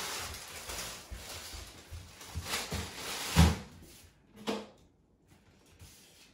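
A plastic bag rustling as it is handled, then a few knocks and one heavy thump about three and a half seconds in as things are moved around in an under-bed storage drawer.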